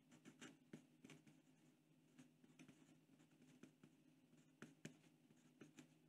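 Faint short ticks and scratches of a Pentel Sharp Kerry 0.5 mm mechanical pencil printing numerals on drafting paper, each stroke a separate tick at an uneven pace, over a low steady hum.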